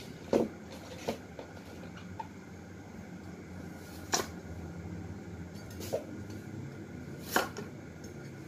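About six separate knocks and clatters of kitchen food preparation, such as items set down on the counter and a knife striking a chopping board, spaced a second or more apart over a steady low hum.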